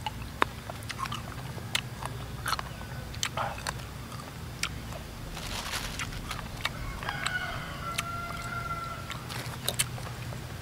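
A person eating menteng fruit: chewing and smacking the lips, with short sharp clicks scattered throughout.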